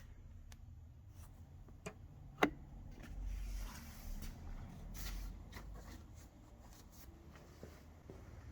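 Scattered clicks and light knocks of car interior parts being handled and taken apart, with one sharper knock about two and a half seconds in.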